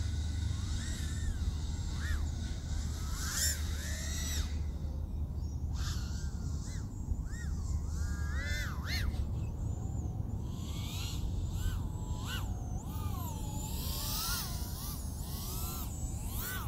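Eachine TS130 micro quadcopter's 1507 brushless motors whining in flight, the pitch rising and falling with the throttle over a steady low hum.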